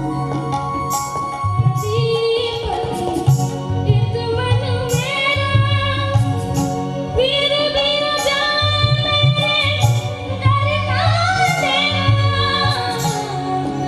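A boy singing a song into a microphone, with some long held notes, over a live band of synthesizer keyboards and drums keeping a steady beat.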